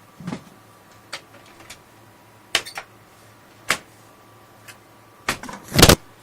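Scattered sharp clicks and knocks as a computer case's front panel is handled and snapped back onto the case. The loudest cluster comes just before the end.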